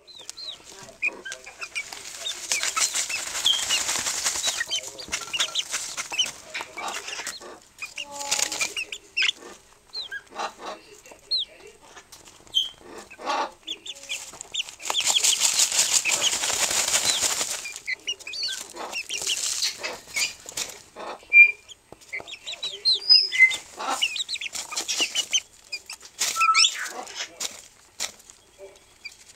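Young chickens dust bathing in their feed dish: several bursts of a few seconds each of wing flapping and feather shaking as they scratch and flick feed, with short chirps and scattered clicks between.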